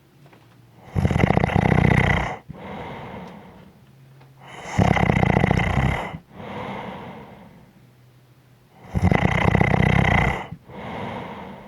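A person snoring in a steady rhythm: three loud snores about four seconds apart, each followed by a softer breath out.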